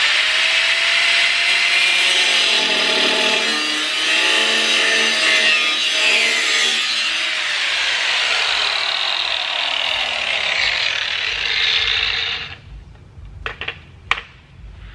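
Angle grinder with a cut-off wheel cutting through a metal bracket on a truck's radiator support, a loud steady grinding that stops about 12 seconds in, followed by a few light clicks.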